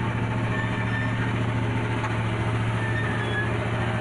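Small amusement-park tourist train running, its engine droning steadily with a low hum, heard from inside the open carriage.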